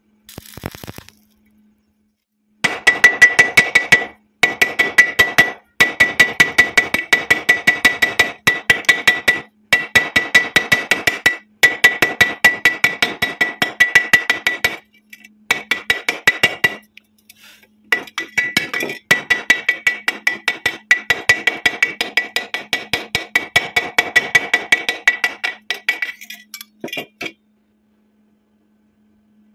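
Hammer rapidly chipping slag off a fresh stick weld on a hollow square steel tube, about six strikes a second in runs of a few seconds with short pauses. Each strike rings with a high metallic tone from the tube.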